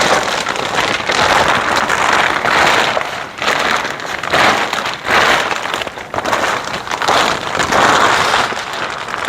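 Plastic greenhouse cover crinkling and rustling loudly as it is pulled and worked over the frame, in spells with a few brief pauses.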